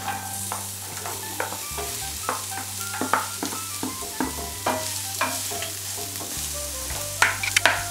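Wooden spatula scraping sliced onions off a cutting board into a frying pan and stirring them in olive oil, with many short clicks and knocks of wood on board and pan over a steady frying sizzle.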